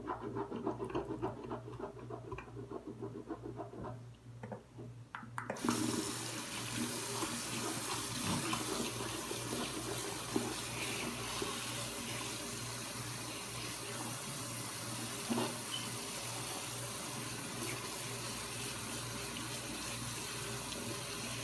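Tap water running into a sink, splashing unevenly at first, then opened up about five and a half seconds in to a steady full-flow rush.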